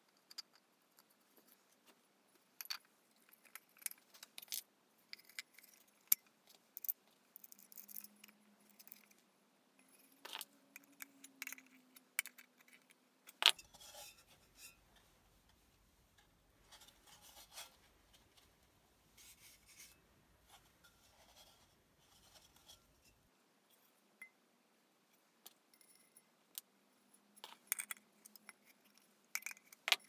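Small metal hardware (a bolt, nut and washers) clinking and scraping against a terracotta pot and wooden parts as they are fitted by hand through the pot's hole, with pliers used on the nut inside the pot near the end. Scattered sharp clicks, with stretches of light scraping in between.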